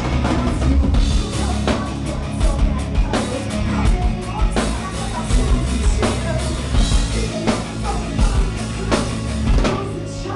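Rock band playing live, with the drum kit's hits standing out at a steady beat over the band.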